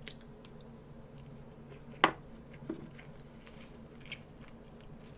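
Faint eating sounds: quiet chewing with a few small clicks, and one sharper click about two seconds in.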